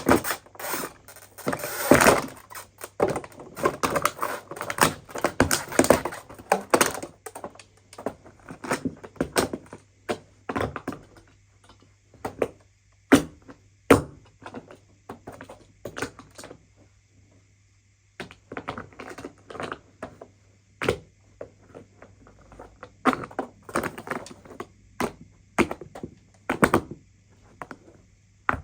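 Irregular knocks, clicks and clatter of hard parts of a broken coffee machine being handled and struck, with busier stretches at the start and again in the second half.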